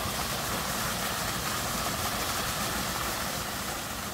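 Small artificial waterfall pouring off a rock grotto into a shallow pool: a steady rush of falling water.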